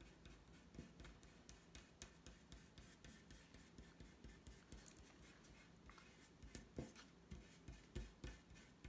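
Faint rubbing of a fingertip over oil pastel on paper, blending the colours in many short, soft strokes, a few louder near the end.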